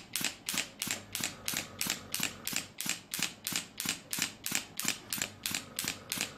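Pneumatic shockwave therapy handpiece firing against the shoulder: a steady train of sharp clicking shots, about five a second.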